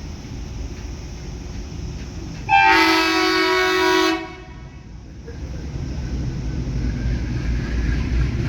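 Diesel locomotive air horn sounding one blast of about a second and a half, a chord of several tones. After it, the low rumble of the train grows steadily louder.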